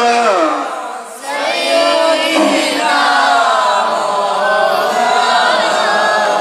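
Melodic chanting in the sung style of a waz, with long held, wavering notes. One phrase ends just after the start, and a new drawn-out phrase begins about a second in.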